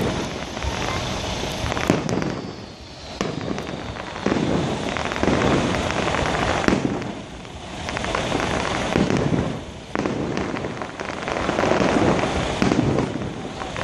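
Aerial fireworks bursting: sharp reports and dense crackling that swell and fade in waves every second or two.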